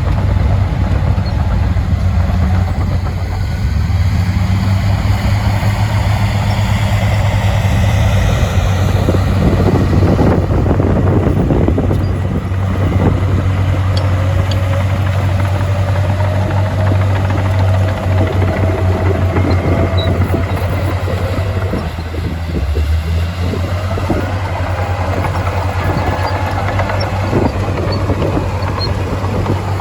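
Diesel engine of heavy earthmoving machinery running steadily under load. A deep, constant hum carries a whine that slides slowly up and down in pitch.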